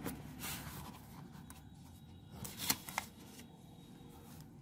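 Faint rustling of a sheet of paper being laid over and slid across a book page, with two or three short crisp paper sounds about halfway through.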